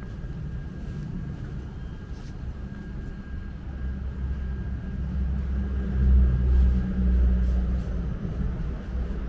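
A passing motor vehicle's low engine rumble, building about three seconds in, loudest around six to seven seconds, then easing off.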